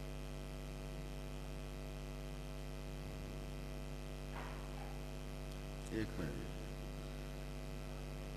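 Steady electrical mains hum from the microphone's sound system, a buzz with many overtones. A brief faint voice-like sound comes about six seconds in.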